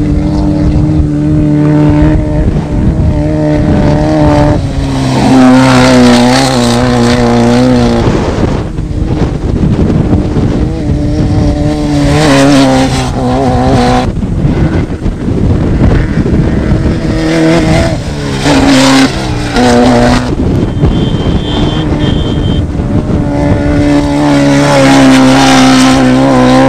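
Engines of off-road desert race vehicles running hard, several in turn, each holding a steady pitch for a few seconds before it changes or drops away, with stretches of rushing noise between them.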